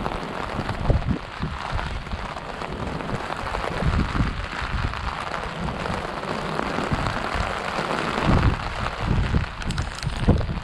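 Heavy tropical-storm rain, pouring steadily, with gusts of wind buffeting the microphone in uneven low rumbles.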